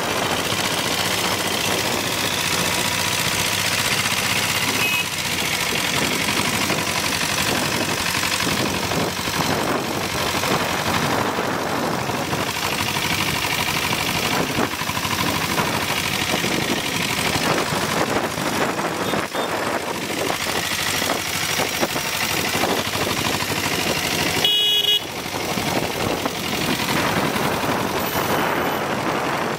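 Royal Enfield Bullet's Lombardini 325 cc single-cylinder diesel engine running on the move, a steady rapid knocking mixed with traffic noise. A vehicle horn honks briefly late on.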